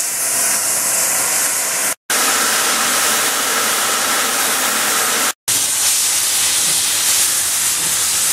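Steam locomotives hissing loudly as steam blasts from their open cylinder drain cocks, in three spliced clips, each change marked by a brief cut to silence about two and five seconds in.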